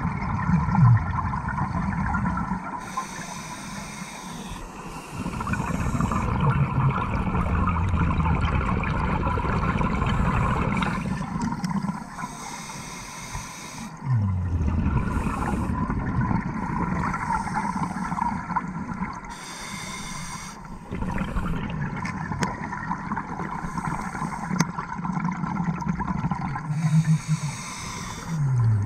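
Scuba regulator breathing heard underwater: bursts of exhaled bubbles about every seven or eight seconds, over a steady underwater hum.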